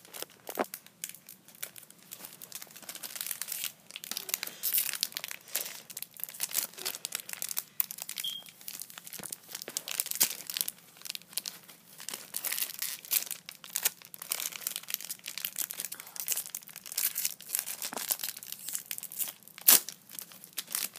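Crinkly plastic blind-bag packaging crackling and tearing in steady, irregular bursts as it is handled and torn open by hand.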